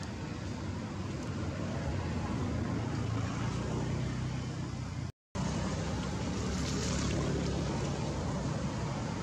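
Steady low rumble of a running vehicle engine under a wash of outdoor noise. The sound drops out completely for a moment about five seconds in.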